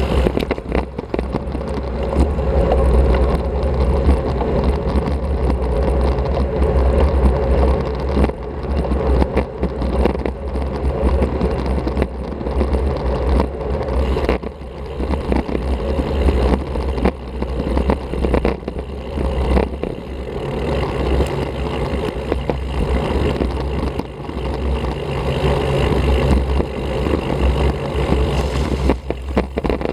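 Wind buffeting an action camera's microphone on a moving road bicycle, a steady low rumble mixed with tyre and road noise, dipping briefly a few times.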